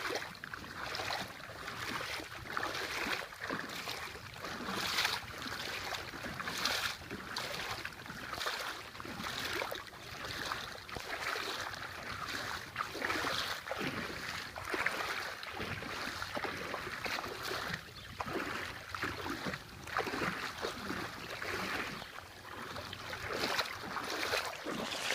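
Floodwater sloshing and splashing in uneven surges.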